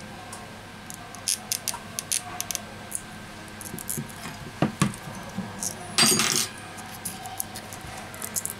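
Small clicks and metallic taps of steel tweezers against a smartphone's metal mid-frame as the battery is pried loose, with a louder clatter about six seconds in.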